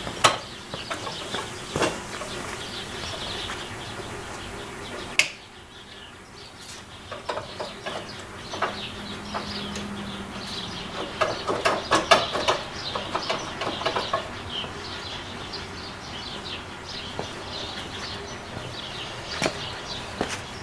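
Birds chirping in the background, with scattered sharp clicks and taps from hands working on wiring under a truck's hood. There is one loud click about five seconds in and a flurry of clicks around the middle.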